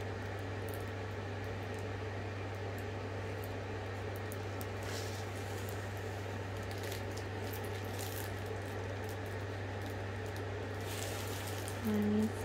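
Steady low hum of a running feeding tube, with a few faint crinkles of the plastic film over a rolled canvas being handled.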